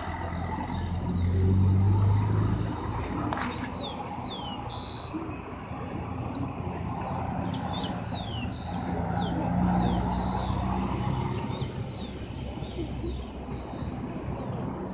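Birds chirping, with many quick high notes sliding downward all through, over a steady low engine hum of motor traffic that swells about two seconds in and again near ten seconds. A single sharp click about three seconds in.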